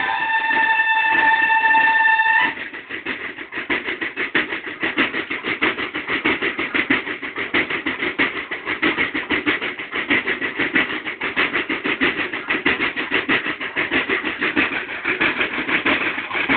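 A banda de guerra: the bugles hold one long note that cuts off about two and a half seconds in, then the line of fringed field drums plays a fast, steady cadence on its own.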